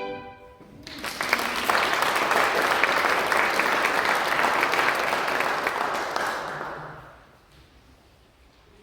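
Audience applauding at the end of a violin and piano piece, starting about a second in and dying away over the last couple of seconds.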